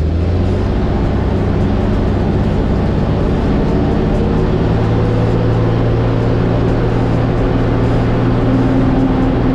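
Large gasoline engine of a 1965 American LaFrance fire truck running under load as it drives, heard from inside the cab as a loud, steady low drone. A higher steady tone joins near the end.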